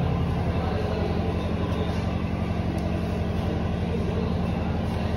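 Steady low drone of a running motor, with a constant hum and no change in pitch.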